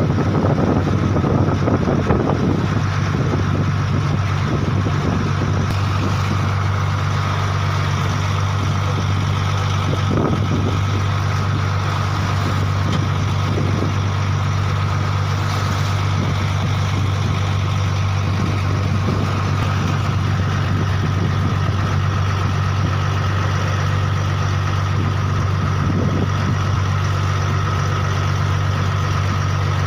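A large engine running steadily at a constant speed, a low even hum with a faint whine above it.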